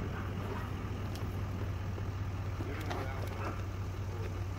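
A vehicle engine idling with a steady low hum, with faint voices in the background about three seconds in.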